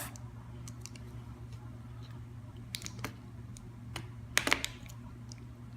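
Scattered light plastic clicks and taps as the ink-carrying piece is worked off the damper unit of a Spectra 3000 garment printer, the loudest about four and a half seconds in, over a low steady hum.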